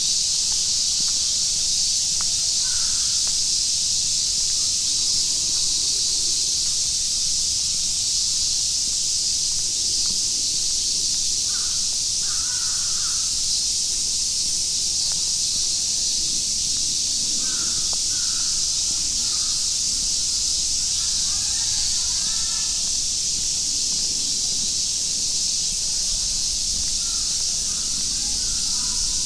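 Steady hiss of falling rain, with short calls in little runs several times over it: about three seconds in, near twelve, around eighteen, twenty-one to twenty-two, and near the end.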